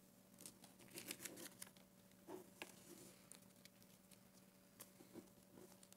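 Faint rustling and small clicks of paper being handled at a pulpit, picked up by the lectern microphone, in irregular clusters over a faint steady hum.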